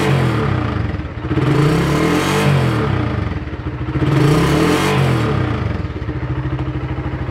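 Suzuki Raider R150's 150 cc single-cylinder four-stroke engine being revved in short throttle blips. A rev falls away at the start and two more rise and fall, about 1.5 and 4 seconds in, before the engine settles back to a steady idle near the end.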